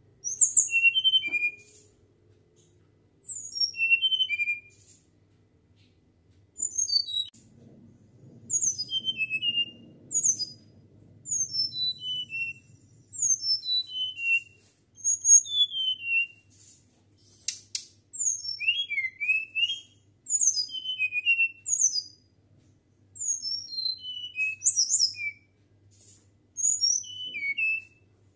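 Caged flycatcher (sikatan) singing a fluting song: short phrases of quick, high, falling whistled notes, one phrase every couple of seconds.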